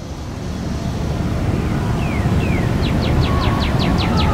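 Steady low outdoor rumble. About two seconds in, a bird calls with two falling chirps and then breaks into a rapid trill of short downward notes, about seven a second.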